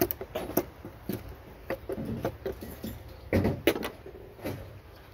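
Irregular small clicks and scrapes of a screwdriver working the hose clamp on a radiator vent hose, with a cluster of louder knocks a little past three seconds in.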